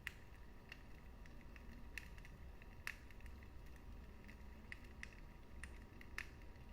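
Wood fire crackling in a fireplace: sharp, irregular pops and snaps from the burning logs over a faint low rumble of the flames.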